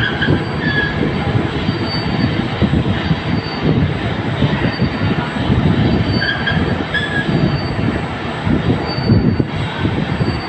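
Lathe running while turning a workpiece: a steady, dense rumble of the machine with the tool cutting, and short high squeals of metal on metal near the start and again about six seconds in.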